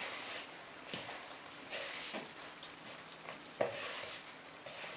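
Soft potato gnocchi dough being kneaded by hand in a plastic mixing bowl: a faint rustle with a few soft thumps, the loudest about three and a half seconds in.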